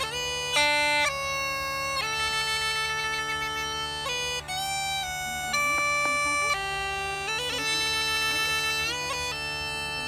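Irish uilleann pipes playing a slow, ornamented melody over a steady drone, with quick grace-note flicks between the held notes and a fast trill a couple of seconds in.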